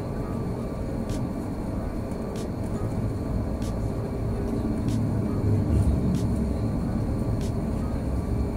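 Cabin noise of an Airbus A340-600 in its climb after takeoff: the steady low roar of its four Rolls-Royce Trent 500 engines and the airflow, heard inside the cabin, swelling slightly about halfway through.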